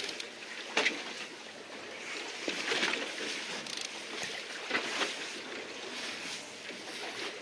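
Sea water lapping and slapping against a small fishing boat's hull, with wind noise. Sharper slaps stand out about one, three and five seconds in.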